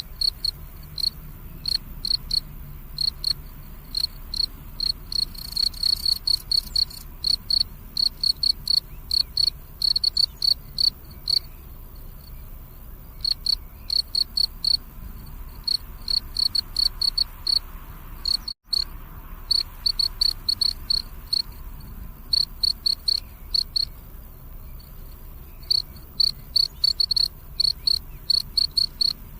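Cricket chirping: rapid trains of short pulses on one high pitch, repeating with brief pauses between runs. The audio cuts out for a split second about two-thirds through.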